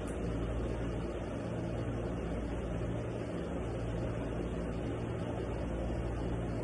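Steady low hum under an even hiss, like a running fan or appliance in a small room.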